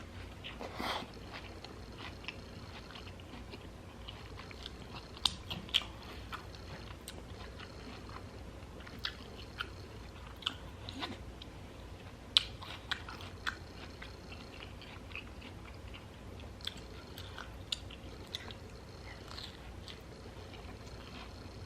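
Close-up chewing and biting of carne asada tacos in crisp jicama wraps with raw onion, with scattered sharp crunches and wet mouth clicks.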